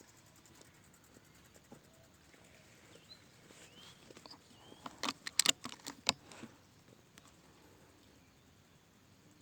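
A few short bird chirps, then a quick cluster of sharp clicks and taps a little past the middle.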